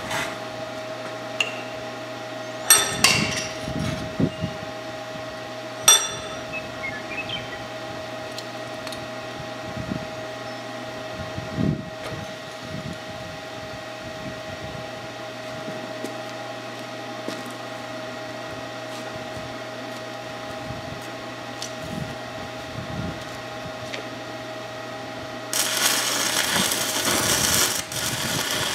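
Stick welder humming steadily, with a few sharp knocks near the start; then, about 25 seconds in, the welding arc strikes and crackles steadily as a worn shaft is built up with weld.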